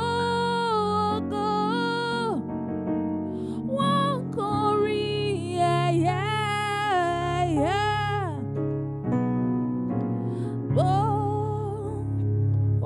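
Slow worship music: sustained electric-keyboard chords under a gliding, wavering melody line in long phrases.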